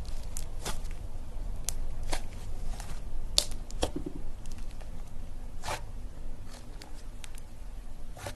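Slime being squeezed and poked by hand, giving irregular sharp clicks and small pops, about ten of them, over a low steady rumble.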